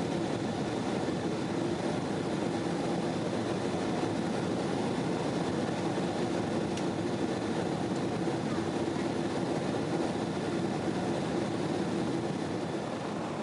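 Cabin noise inside a Boeing 777-200ER airliner in flight: the steady drone of the engines and airflow, with a constant low hum.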